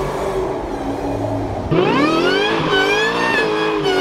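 Supercharged V8 car accelerating hard. After a steady low engine note, the engine and supercharger whine rise sharply in pitch a little under two seconds in, then waver up and down as the revs climb and drop.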